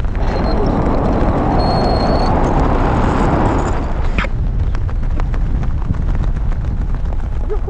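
Wind rushing over a pole-mounted action camera's microphone during a tandem parachute descent under an open canopy: a steady, loud rush with a heavy low rumble.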